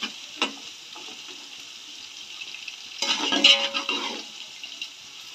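Sliced onions, green chillies and whole spices sizzling in hot oil in a large metal pot while a metal spatula stirs and scrapes the bottom, with a louder stretch of scraping about three seconds in. This is the onion-and-chilli base being fried until its raw smell is gone.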